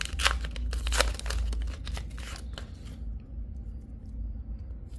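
Trading-card booster pack packaging torn and crinkled while the cards are handled. A quick run of sharp crackling rustles in the first three seconds gives way to faint handling noise.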